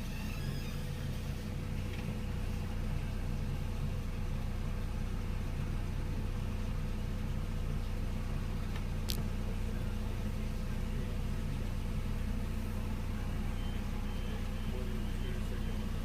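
Steady low hum of an idling car, heard from inside the cabin. A single short sharp chirp about nine seconds in, and a faint repeated beeping near the end.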